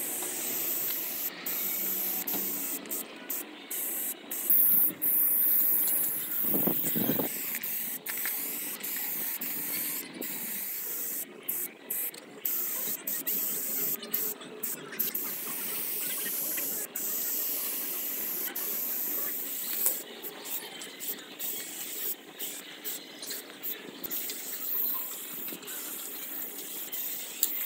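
Aerosol spray paint cans hissing onto a wall in short and longer bursts, the hiss cutting off and starting again many times.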